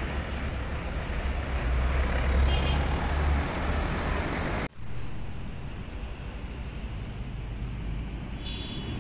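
Intercity coach's diesel engine rumbling as it pulls away, loudest a couple of seconds in. About halfway through, a sudden cut to quieter, steady road traffic.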